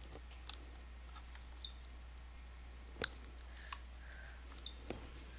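A few isolated sharp clicks and taps over a low steady hum, the clearest about three seconds in.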